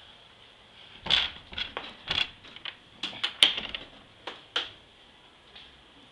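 A quick, irregular run of sharp clicks and knocks, about a dozen in three and a half seconds, starting about a second in.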